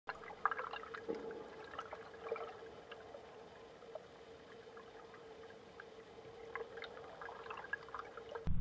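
River water heard underwater through a camera housing: faint scattered clicks and crackles over a steady hum. It cuts abruptly to a much louder low rumble at the very end.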